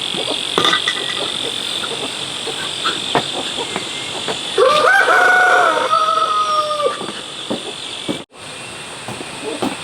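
A rooster crowing once, a single drawn-out call of about two seconds starting about halfway through. A steady high-pitched hum and scattered small clicks run underneath.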